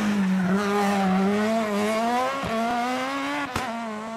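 Rally car's engine running hard at high revs as the car approaches and passes, its note steady and slowly rising. Short sharp cracks come about two and a half and three and a half seconds in, after which the sound fades as the car goes by.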